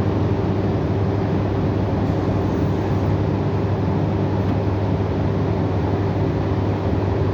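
Mitsubishi Fuso 4P10 four-cylinder diesel engine idling steadily, with a steady low hum and a constant tone. Exhaust is leaking from the EGR pipe, which the mechanic takes for the cause of the out-of-range EGR reading.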